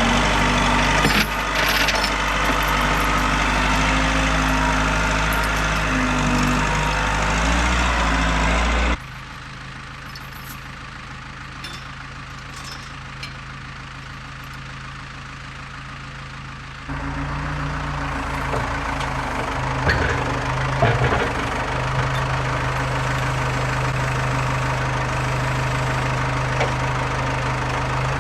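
Heavy equipment engine running steadily. It drops sharply to a quieter hum about a third of the way in, then comes back louder for the last part.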